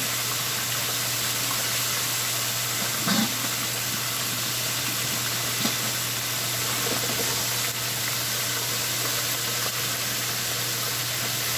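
Chicken breast frying in hot oil in an electric deep fryer: a steady sizzling hiss over a low hum, with a light knock about three seconds in and another near six.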